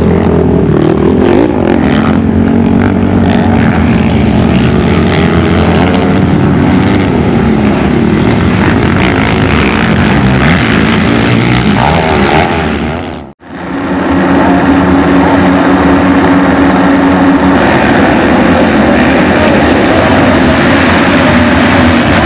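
Racing ATV (quad) engines running hard on a motocross track, revving up and down with speed. The sound drops out briefly about thirteen seconds in, then comes back with a steadier held engine note.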